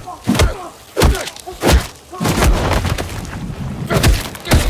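A run of about six heavy thuds and booms at uneven intervals, typical of blows in a trailer fight sequence, some followed by short grunt-like sounds, over a low rumble that sets in about halfway through.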